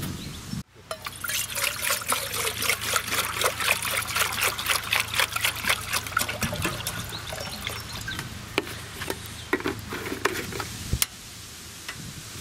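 Water poured from a large plastic jug into an aluminium pot, splashing and trickling steadily as the pot fills. Near the end a sharp click, followed by a steady hiss.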